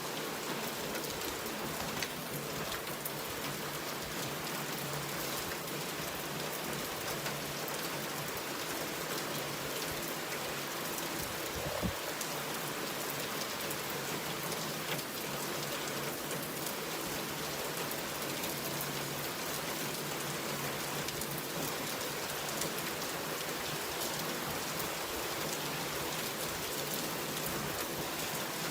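Steady rain falling on a surface, an even hiss, with a few sharper drop taps, the loudest a little before halfway.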